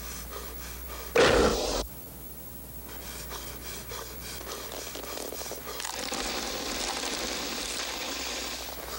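A man breathing heavily, with one loud, harsh gasp about a second in. A steady hiss swells from about six seconds in.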